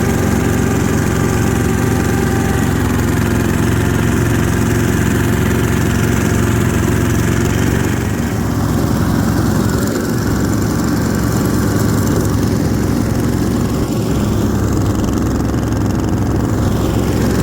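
Ockelbo snowmobile's Yanmar diesel engine running steadily as the sled is ridden along.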